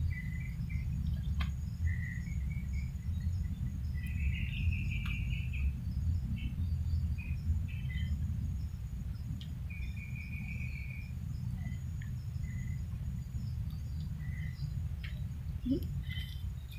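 Birds chirping and trilling in short calls over a steady, thin, high insect buzz, with a low steady rumble underneath and a few faint clicks.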